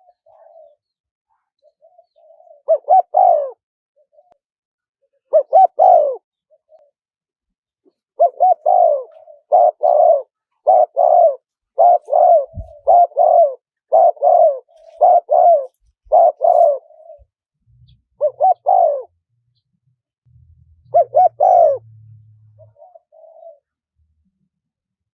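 Spotted dove cooing: single calls, then a long run of about a dozen evenly spaced coos in the middle, then two more calls near the end, with soft quieter notes in between.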